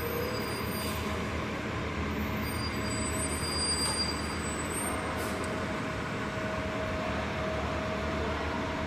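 Transit bus engine running with a steady low rumble and a faint steady whine, inside an enclosed concrete bus terminal.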